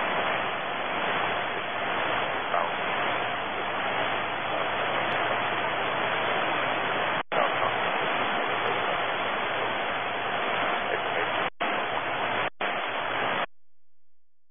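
Loud steady hiss of static on an air traffic control radio feed, as on an open channel with no voice. It drops out for an instant about halfway and twice near the end, then stops shortly before the end.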